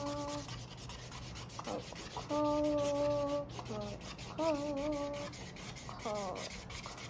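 Mr. Sketch felt-tip marker scribbling quickly back and forth on paper, a steady rhythmic scratching of colouring-in strokes. Over it a child's voice hums a few held notes: a steady one a couple of seconds in, a wavering one, then a falling slide near the end.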